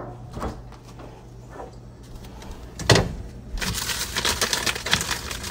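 A refrigerator door is pulled open with a single thud about three seconds in, followed by a rapid metallic jingling that keeps on. A few small clicks come before it.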